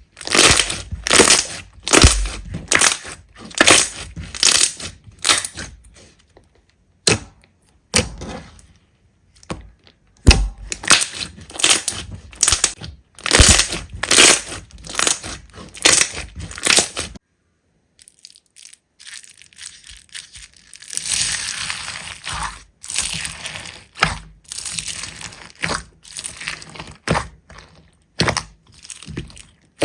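Slime being squeezed and pressed by hand, giving a run of crackling, crunchy squelches about two a second. It breaks off partway through into a short silence, then resumes with a longer crackling rustle and more squelches.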